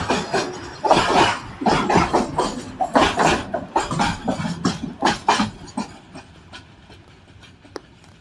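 Train passing, its wheels clattering loudly and irregularly over the rail joints, then dying away about six seconds in, with a few faint clicks after.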